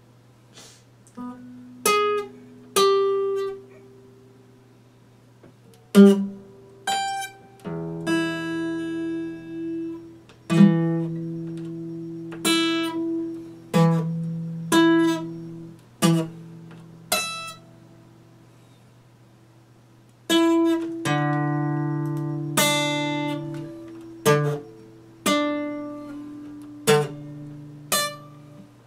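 Epiphone acoustic guitar played slowly by hand: single plucked notes and a few fuller strummed chords left to ring out and fade, with short pauses between phrases.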